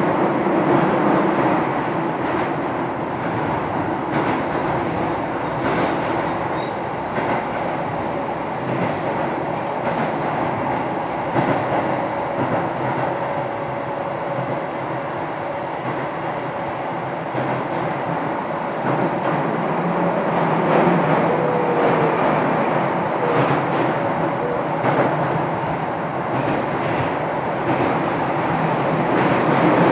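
Keio 7000-series electric train, motor car DeHa 7271, running steadily along the line: an even rumble of wheels on rail and car noise, with light clickety-clack and a faint steady tone from the running gear.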